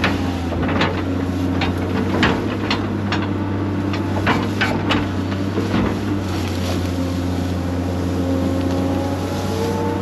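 Excavator's diesel engine running steadily under work, with a string of sharp knocks and cracks in the first half as the bucket digs into and tears through a mat of pine roots.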